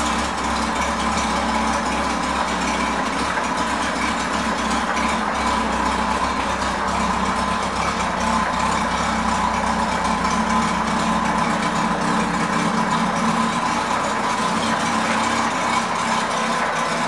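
1999 Honda Gold Wing SE's 1520 cc flat-six engine idling steadily.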